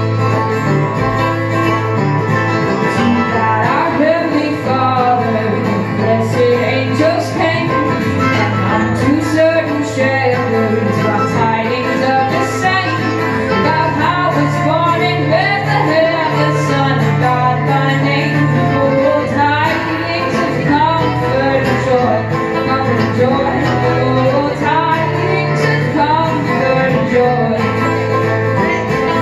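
A live acoustic bluegrass-style band playing a song: a woman singing lead over strummed acoustic guitar, picked banjo and mandolin, continuous and steady in loudness.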